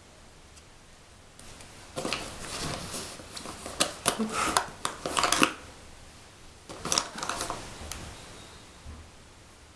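Clicks and rustles of plastic makeup items being handled, in two spells: one starting about two seconds in, a shorter one around seven seconds.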